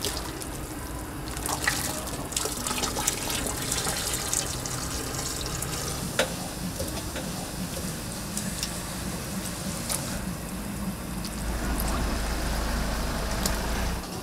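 Water running and splashing, with a few sharp clinks and knocks scattered through it over a steady low hum.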